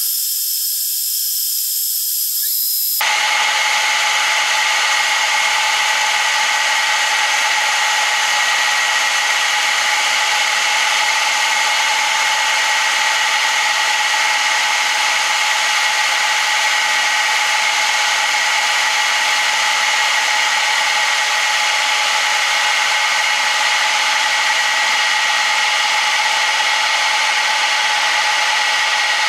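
Metal lathe running while the cutting tool faces the end of a cast aluminium billet: a steady machine whine over a continuous cutting hiss. The sound gets fuller and slightly louder about three seconds in.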